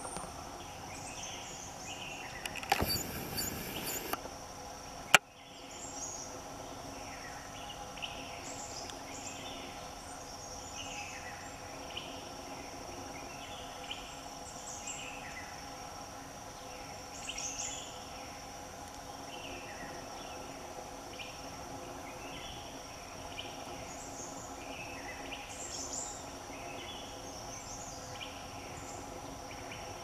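Forest stream ambience: a steady drone of insects with a high, even tone, and short bird chirps repeating throughout. About three seconds in there is a loud burst of noise lasting a little over a second. About five seconds in comes a single sharp click.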